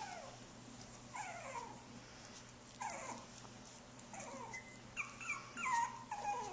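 Young puppies whimpering: a string of short, high, falling squeaks, coming closer together near the end.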